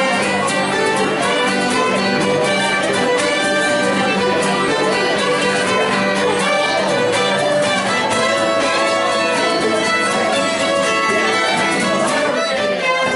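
Two fiddles playing a traditional folk tune together, with a mandolin-type instrument and an acoustic guitar strumming along, running continuously without a break.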